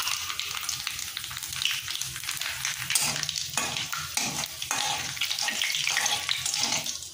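Nigella seeds and a dried red chilli crackling and sizzling in hot mustard oil in a kadai. From about three seconds in, a spatula stirs and scrapes through the oil in short strokes.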